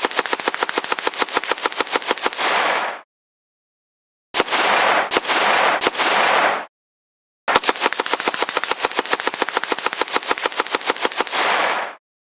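Sound effect of an AN-94 assault rifle firing on full automatic: a long burst that stops about three seconds in, three short bursts in quick succession, then another long burst that stops near the end. Each burst ends in a short echoing tail.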